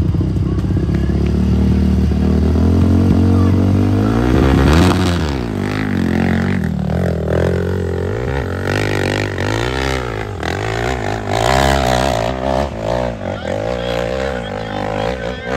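A dirt bike engine is held at a steady high rev. About four seconds in it launches up a hillclimb slope, its pitch sweeping up and down with the throttle as it climbs, growing slightly fainter.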